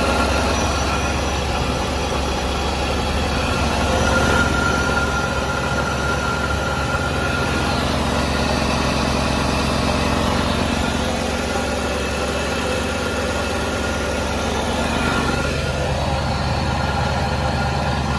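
A 1987 Chevrolet Corvette's 5.7-litre Tuned Port Injection V8 idling steadily, heard close up from the open engine bay.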